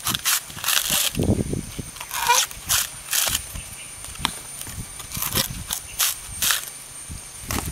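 Green coconut husk being pried and torn away on a metal husking spike: irregular crunching rips and cracks of the fibrous husk, about a dozen, with a duller thump about a second in.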